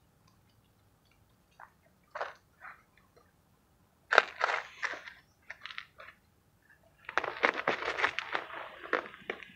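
Fingers pressing and crushing mothballs and crushed mothball powder in a bucket, making crunches: a few scattered ones at first, louder ones a little after four seconds, then a dense run of crunching from about seven seconds in.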